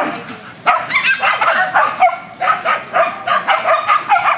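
Shetland sheepdogs barking at play in a rapid run of short, high barks, about four a second, with a brief pause near the middle.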